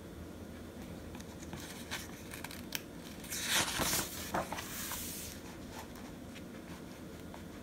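A paper picture-book page being turned by hand: a few faint taps of paper, then a rustling swish lasting about two seconds, starting a little past three seconds in.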